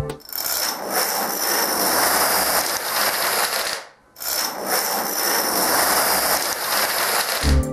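Many domino stones toppling one against another in a dense, continuous clatter, in two runs of about three and a half seconds each, split by a brief silence near the middle.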